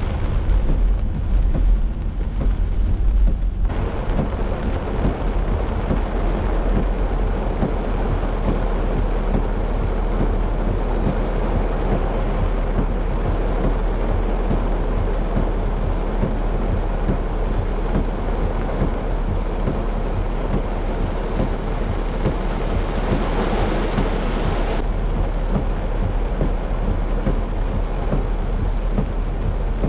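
Heavy downpour pounding on the roof and windshield of a moving car, heard from inside the cabin as a loud, steady roar. The first few seconds are deeper and rumbling before the rain noise fills in. About three-quarters of the way through, a louder, hissier stretch ends suddenly.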